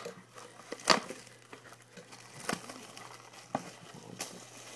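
Crinkling and tearing of trading-card packaging as a box of card packs is opened, in a few separate sharp crackles.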